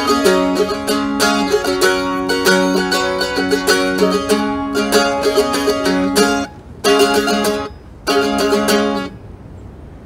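Mandolin played solo: a quick run of picked notes, then two short strummed chords with brief pauses between them, ending about a second before the end.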